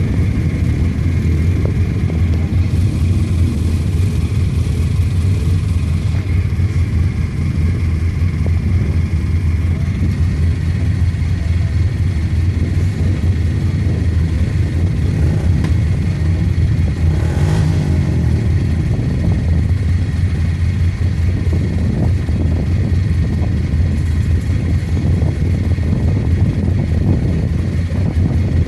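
ATV engines running steadily with a low rumble, with a short rushing burst about two-thirds of the way through.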